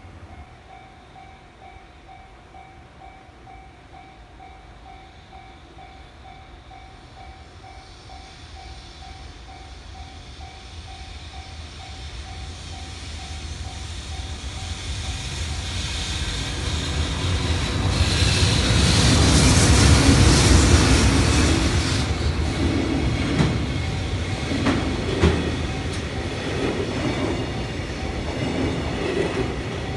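A level-crossing warning bell rings in a steady repeating beat as a freight train approaches. The electric locomotive's motors and cooling blowers grow louder and are loudest about twenty seconds in. Container wagons then roll past, their wheels clacking over the rail joints.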